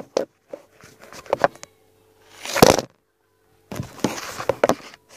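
Handling noise from a phone camera being picked up and moved: a few sharp knocks and clicks near the start, then two longer bursts of rubbing and rustling against the microphone, one around the middle and one near the end.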